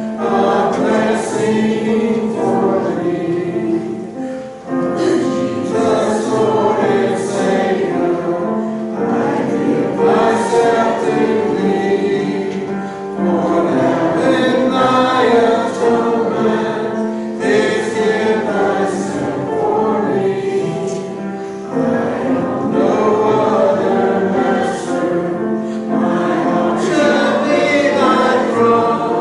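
Church congregation singing a hymn together, with many voices on sustained notes.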